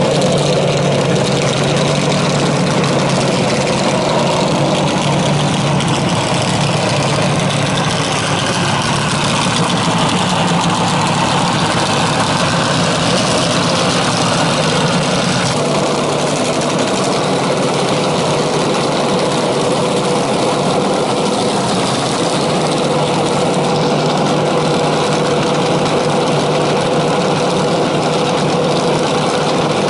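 Drag-racing dragster's engine idling loudly and steadily, with no revving.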